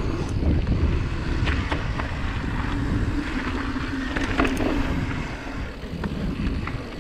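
YT Capra Uncaged 9 mountain bike descending a gravel and dirt trail: wind rushing over the action camera's microphone and tyres rolling over loose gravel, with scattered rattles and knocks from the bike over bumps, the sharpest about four and a half seconds in.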